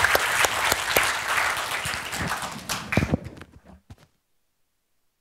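Audience applauding, the clapping thinning out and dying away, ending about four seconds in.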